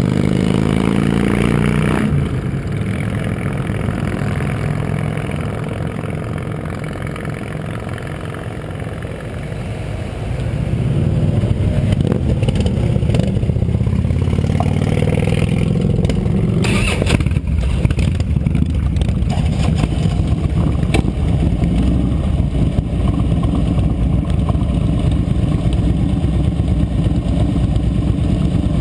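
Harley-Davidson V-twin motorcycle engines running in a line of waiting bikes. They rev up in the first couple of seconds, then settle to a steadier, quieter rumble, which grows louder again from about ten seconds in as the bikes pull away. A few short knocks come past the middle.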